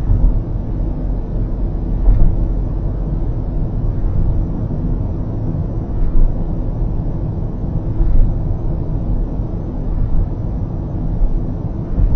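Steady low road and tyre rumble of a car cruising on an expressway, heard from inside the cabin, with several light thumps.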